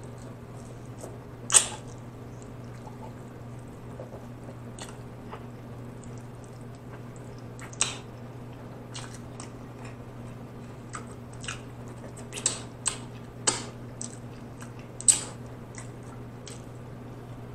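Close-miked mouth sounds of eating barbecue ribs: chewing and biting meat off the bone, with scattered wet smacks, loudest about a second and a half in and near the end, clustering in the last few seconds. A steady low hum runs underneath.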